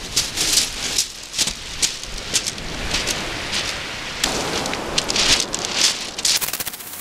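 Waves on a shingle beach, with pebbles crackling and hissing as the water washes over them and drags back, and a fast run of rattling near the end.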